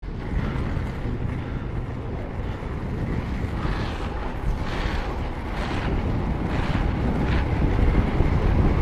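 Wind buffeting the action-camera microphone over the rumble of inline skate wheels rolling on asphalt, growing louder as the skater picks up speed downhill. Brief hisses come about once a second in the middle.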